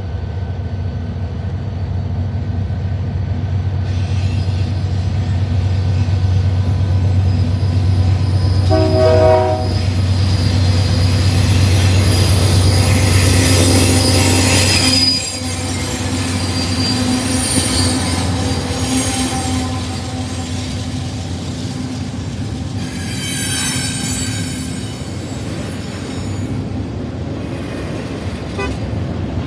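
Diesel-hauled double-stack container freight train passing close by. The locomotive's engine drone is loudest about halfway through as the Union Pacific unit goes past. A short horn blast sounds about nine seconds in, and high-pitched wheel squeal comes from the container cars later on.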